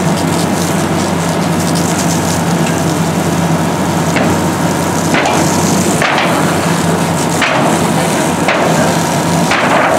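A fire hose stream hissing steadily against debris over a constant engine drone, with firefighters' hand tools striking and scraping the burnt rubbish about six times, mostly in the second half.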